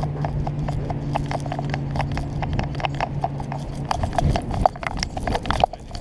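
A trotting dog's footfalls heard through a camera strapped to its back: a quick, even run of thumps and clicks from the paws and the jolting mount, with harder, louder hits in the last couple of seconds.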